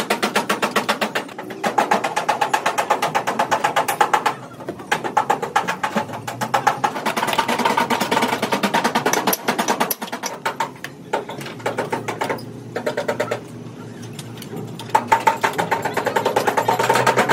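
Rapid, evenly spaced knocking, about five strikes a second, in runs of a few seconds broken by short pauses.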